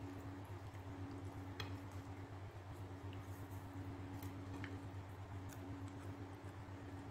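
Steady low hum, with a few faint soft clicks and wet squishes as whole raw fish are picked up and handled on a ceramic plate.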